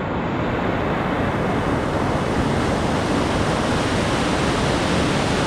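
Steady rush of whitewater from a rapid on the Foss River, an even roar with no breaks.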